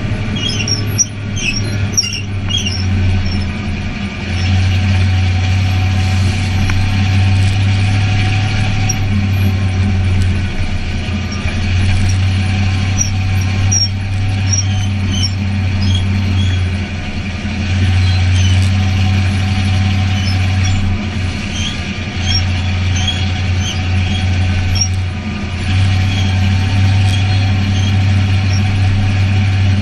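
Short-track race car engine heard from inside the cockpit. It runs loud at high revs and drops off briefly about every five seconds, the pattern of getting on the throttle down the straights and lifting for the turns of the oval.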